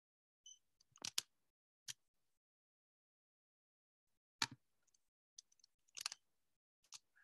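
Faint, scattered sharp clicks and taps from working a computer's mouse and keyboard, a few clicks a second or two apart, heard through a video-call microphone with dead silence between them.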